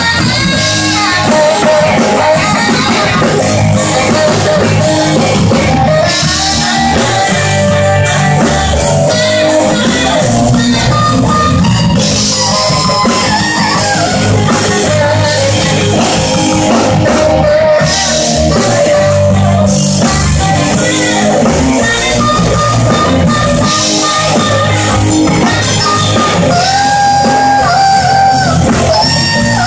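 Live band playing a soul song, with electric guitar and drum kit under a melodic lead line.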